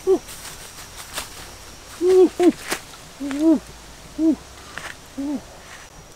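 A woman's short wordless exclamations of surprise, six in all, each rising then falling in pitch, with two close together about two seconds in. Light clicks and rustles from the leaf litter lie beneath.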